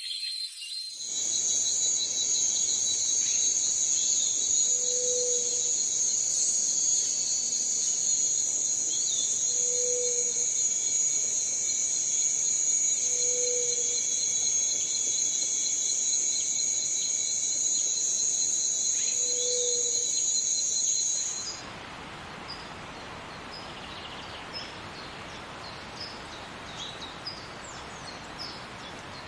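Rainforest insect chorus, a loud, steady, high-pitched drone, with a soft low hoot heard four times. About two-thirds through it cuts off suddenly, leaving quieter forest ambience with scattered faint high chirps.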